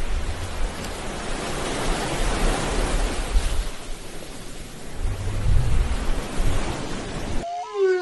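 Underwater ocean ambience: a steady rushing hiss with low rumbles. Near the end it cuts off and a whale call begins, its pitch sliding downward.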